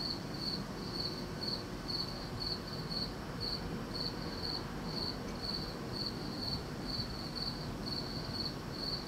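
Cricket chirping in a steady rhythm of about two high-pitched chirps a second, over a steady low background hum.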